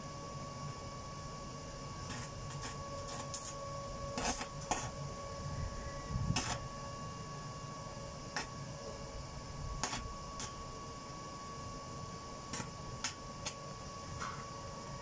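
Stick-welding electrode being struck against a steel grille frame: scattered sharp clicks and short pops, the loudest about four to six seconds in. A steady high whine runs underneath.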